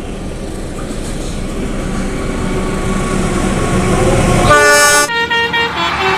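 A low rumble grows steadily louder. About four and a half seconds in, a loud multi-tone horn sounds a chord, then breaks into short stepped notes like a tune: a 'telolet' musical horn.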